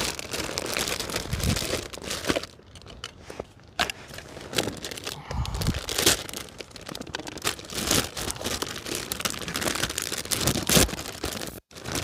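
Crinkly packaging of pizza dough bases being handled and torn open, rustling and crackling in irregular bursts.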